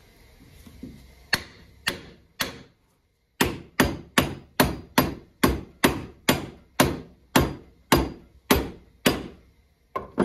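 Hammer blows on metal at a cast-iron swivel bench vise: three strikes, then a steady run of about fifteen blows at two or three a second, and one more near the end.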